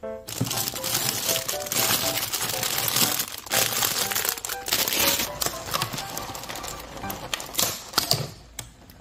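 Plastic food packaging, a bag of beansprouts among it, crinkling and rustling with many sharp crackles as it is handled, dying away near the end. Light background music plays underneath.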